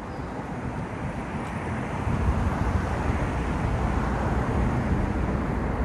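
Steady outdoor rumble of vehicle traffic, swelling over the first two seconds and then holding.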